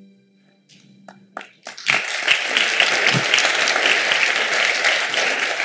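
Audience applauding, a few scattered claps at first, then full, steady applause from about two seconds in.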